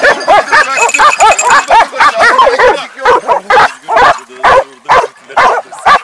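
A pack of hunting hounds barking and baying at a wild boar they hold at bay: rapid, overlapping calls, several a second, without a break.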